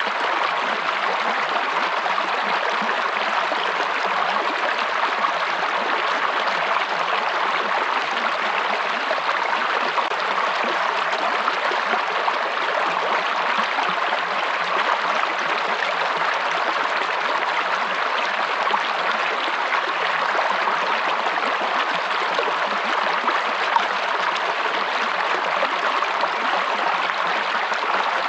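Running water of a forest stream or small waterfall, a steady, unbroken rush.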